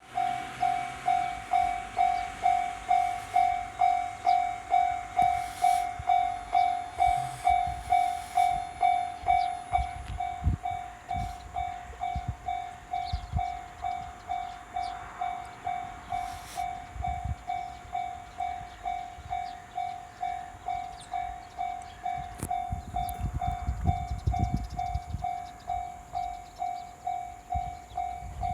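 Japanese level-crossing warning bell ringing in an even two-beats-a-second clang, while a train passes over the crossing. The train's rumble grows in the second half and is loudest a little before the end.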